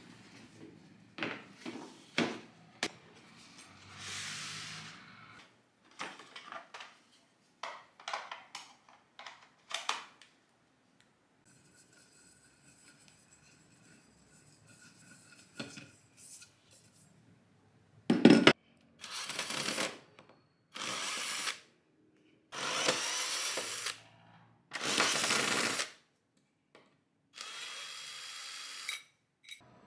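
Cordless drill-driver running in five short runs of about a second each, backing the screws out of a table leg's mounting plate. Before that come scattered clicks and knocks of handling, and a sharp knock just before the first run.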